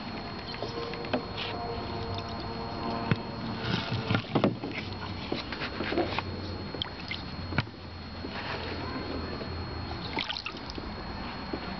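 Water sloshing and splashing in a shallow plastic kiddie pool as turtles move about and a hand reaches in, with scattered knocks and scrapes; the loudest knocks come around the middle.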